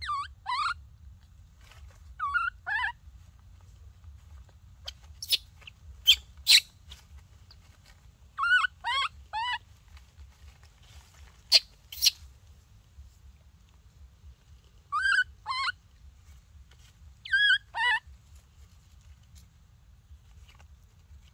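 Baby monkey crying: short pitched calls that bend in pitch, mostly in twos and threes, every few seconds, with a few very short, sharp, shrill sounds in between.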